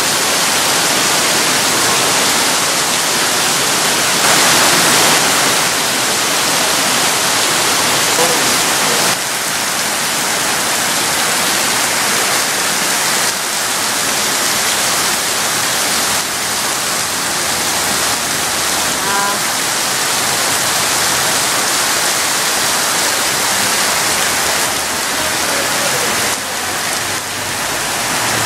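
Heavy tropical rain pouring down onto trees and a flooding street, a loud, steady hiss.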